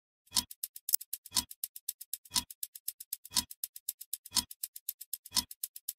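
Countdown clock ticking sound effect: a heavier tick once a second, marking each second of the countdown, with a rapid run of lighter ticks in between.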